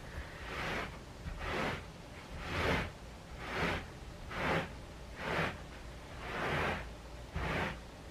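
Rubber-bristled broom raked across carpet, a swish with each stroke, about one stroke a second, eight in all.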